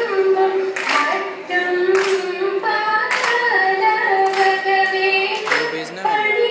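Female voices singing a Margam Kali song in unison, in long held notes, with a sharp hand clap about once a second marking the beat.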